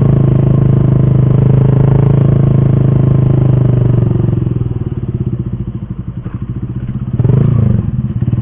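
Motorcycle engine running steadily, then easing off about four seconds in to a low, pulsing note near idle, with a brief rise and fall in engine pitch about seven seconds in.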